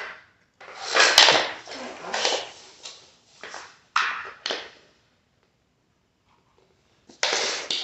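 Rustling and handling noise in several bursts, with one sharp click about a second in, a pause of about two seconds, then more rustling near the end.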